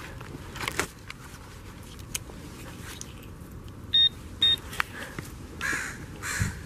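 Handheld metal-detecting pinpointer probe giving two short, high, steady beeps about half a second apart, about four seconds in, as it picks up a buried coin in the wood chips. A few brief scratchy rustles come before and after the beeps.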